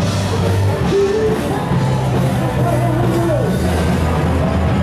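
Rock music playing loud, with held bass notes, drums, guitar and some singing.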